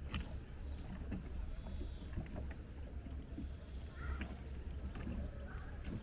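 Small waves lapping and slapping against moored small wooden sailboats and jetty posts in shallow lake water, with scattered light clicks over a steady low rumble.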